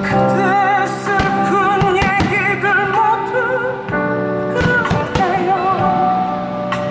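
Music: a singing voice holds long notes with wide vibrato over steady instrumental chords, with occasional sharp hits.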